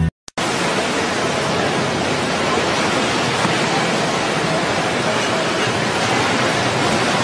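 Muddy floodwater of a swollen river rushing, a steady even noise that begins abruptly a fraction of a second in.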